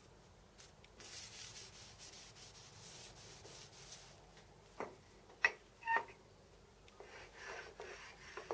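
A run of quick hand strokes rubbing on a metal part, then three sharp metallic clinks with a brief ring, then softer rubbing strokes again near the end.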